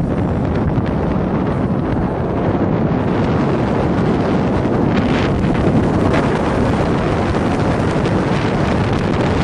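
Wind buffeting the microphone from a moving Jeep, a steady loud rush over the engine and tyre noise on the road.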